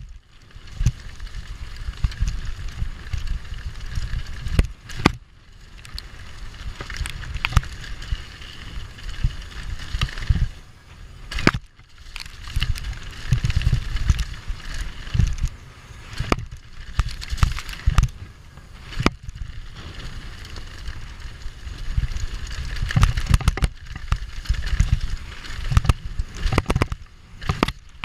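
YT downhill mountain bike running fast down a rough dirt and rock trail: a constant low rumble of wind buffeting the camera microphone and tyres on dirt, broken all through by sharp knocks and rattles as the bike hits bumps and roots.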